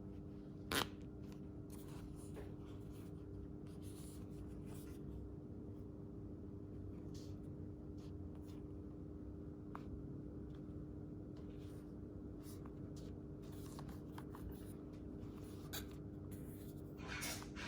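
Hands handling headphones and their packaging: scattered rustles and light clicks, with one sharp click about a second in and a short burst of rustling near the end, over a steady low hum.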